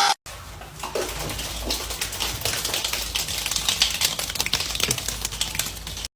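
Rapid, irregular clicking and tapping, many small clicks a second, over a low steady rumble.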